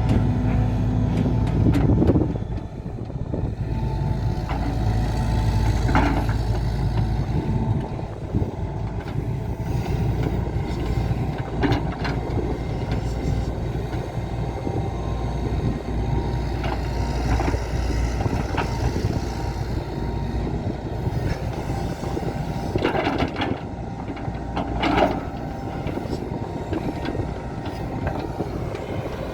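Diesel engine of a JCB JS175W wheeled excavator running under working load while grading, with a steady low drone that swells and eases. A few short knocks or scrapes are heard, around two, six, twelve, twenty-three and twenty-five seconds in.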